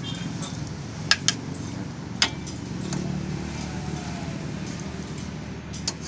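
Metal ladle clinking against a metal cooking pot while serving fish soup. There are two quick clinks about a second in, another a second later, and one near the end, over a steady low hum.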